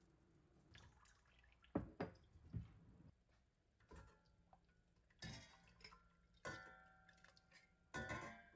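Small hard objects being handled: scattered light taps and knocks, and three clinks about five, six and a half and eight seconds in that ring briefly, as glass or metal does.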